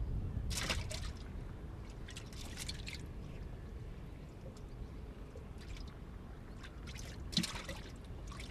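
Water splashing and dripping in a few short bursts as wet yellow perch are lifted and handled, over a steady low rumble.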